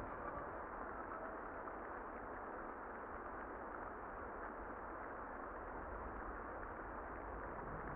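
Steady, muffled rain: an even dull hiss with its high end cut away and no clear music over it.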